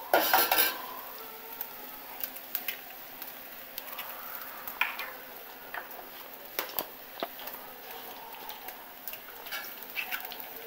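A brief clatter of a spoon against a clay cazuela at the start, then eggs cracked one by one and dropped into the pot: a few sharp cracks and soft wet squishes over a faint sizzle of meat frying in the pot.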